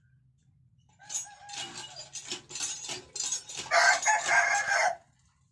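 A rooster crowing, one long crow of about four seconds that is loudest in its final stretch and stops abruptly.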